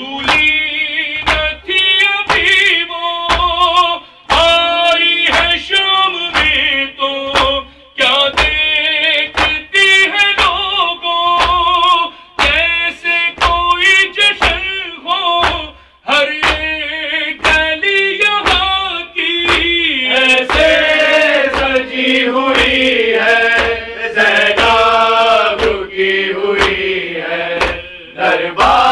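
A group of men chanting a mourning lament (noha) together, with hand-on-chest beats (matam) keeping time about twice a second.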